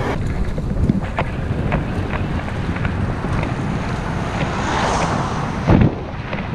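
Wind buffeting the microphone of a bike-mounted action camera while riding, over a steady rumble of tyres on tarmac. A few light clicks, and a louder knock near the end.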